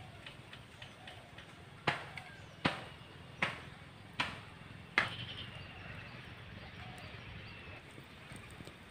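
Five sharp knocks, evenly spaced about three-quarters of a second apart, in the first half, over a faint steady background.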